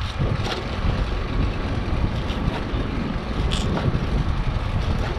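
Wind buffeting the microphone, a steady low rumble, with a few faint clicks.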